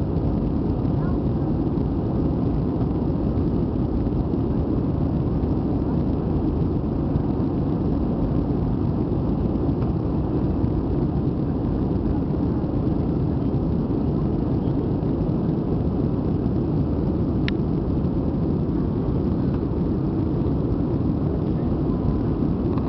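Airbus A320 cabin noise during the climb after takeoff: the engines and rushing air heard through the cabin as a steady, even low rumble.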